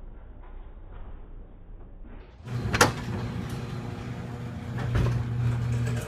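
Garage door starting to move about two and a half seconds in, running with a steady hum, with a loud sharp crack just after it starts and a smaller knock later. The cracking comes as the bottom panels pass the rollers, which the owner blames on poor installation.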